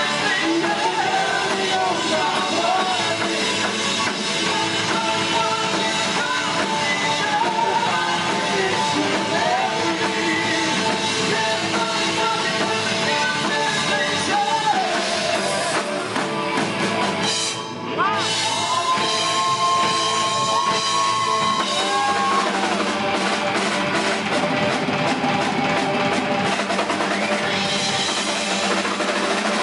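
Live rock band playing with drum kit, electric guitars, bass guitar and vocals. The band drops out briefly just past halfway, then comes back in.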